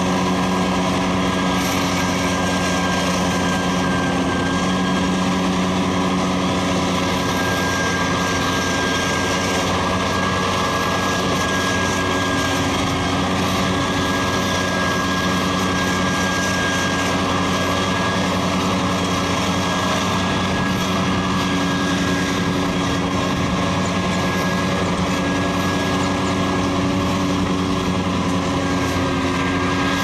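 Large wheel loader's diesel engine running steadily under load as the machine works through deep mud, with a steady high whine over the engine note.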